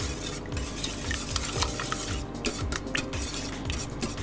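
Wire whisk beating lemon juice, eggs and sugar in a stainless steel saucepan, its wires swishing and clicking against the pan at about three or four strokes a second.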